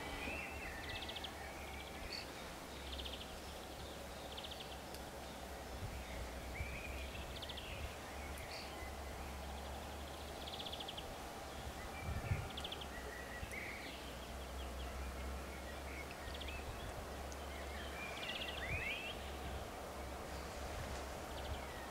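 Small songbirds chirping and trilling in short phrases, over a steady low rumble.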